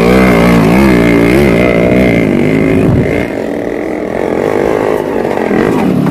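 Yamaha RX two-stroke single-cylinder motorcycle engines revving up and down under throttle. The sound is quieter from about three seconds in, then a bike revs close again near the end.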